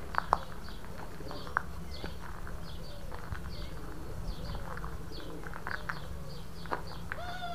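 Pigeons cooing repeatedly while small birds chirp, over a steady low rumble, with a few sharp clicks near the start.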